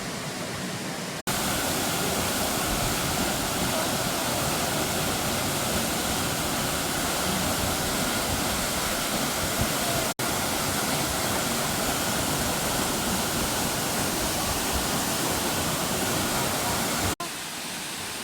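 Mok Fa Waterfall's falling water: a steady, loud rush of water noise, broken by three brief sudden dropouts, about a second in, around ten seconds in and near the end, where the recording is cut.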